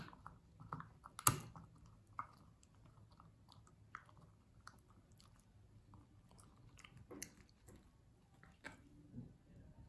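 Akita-Inu puppy gnawing and biting on a very tough beef sinew chew held in a hand: scattered faint clicks and crunches of teeth on the hard chew, the sharpest snap about a second in.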